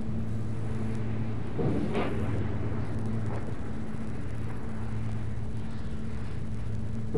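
A large fire burning: a steady rumble with a low hum under it, and surges of rushing noise that swell up about two seconds in and again at the very end.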